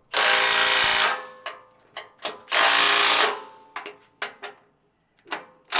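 Cordless impact wrench with a 16 mm socket hammering bolts tight on a steel underbody bash plate: two loud bursts of about a second each, with a third starting at the end and small clicks of socket and bolt between them.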